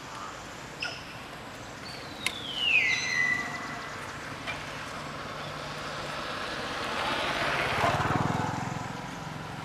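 A motor vehicle passing by, its engine hum and road noise swelling to loudest about eight seconds in, then fading. About three seconds in comes a short, loud whistled call that falls in pitch and holds briefly.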